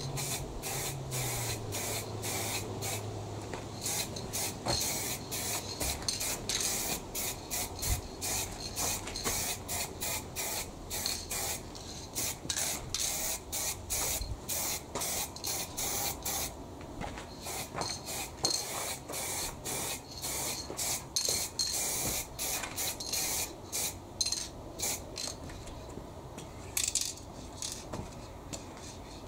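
Spray paint hissing out in many short, quick bursts, as parts are painted. A low hum sinks in pitch and fades out in the first few seconds.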